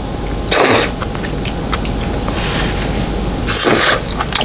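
Two loud slurps, about half a second in and again near the end, as a whole cooked octopus tentacle is sucked into the mouth, with small wet mouth clicks between them.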